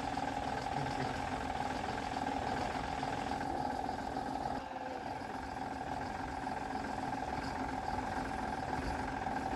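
Tanker truck's diesel engine idling steadily.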